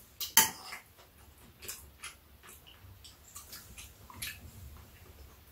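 Metal spoons clinking against bowls while eating: two sharp clinks near the start, then scattered lighter taps.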